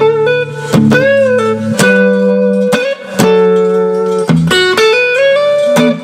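Electric guitar played through a Fender Princeton '68 reissue 1x10 combo amp, as a speaker demonstration: picked notes and chords, some held, with a string bent up and back about a second in.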